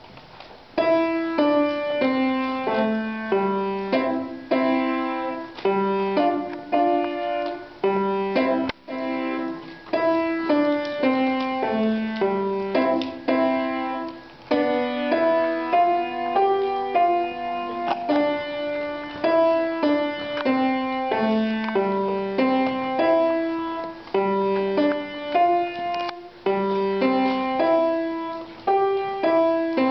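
A grand piano played by a young child, starting about a second in after a short pause: a simple melody over lower accompanying notes.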